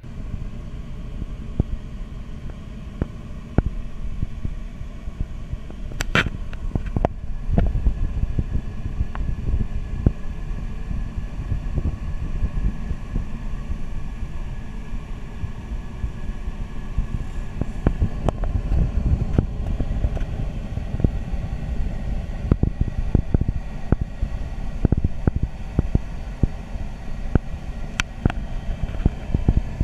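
Steady low rush of air in a glider cockpit in flight, broken by frequent sharp crackles and pops that come from a fault in the recording.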